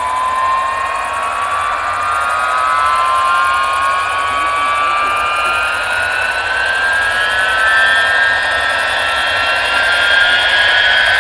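Tupolev Tu-154's three rear-mounted jet engines spooling up, a slowly rising whine over a steady rush, as the airliner sets off on its takeoff run.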